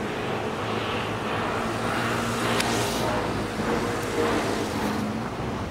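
Boom crane's engine running steadily under load as it hoists a long wooden river boat, over a steady rushing noise, with a light click about two and a half seconds in.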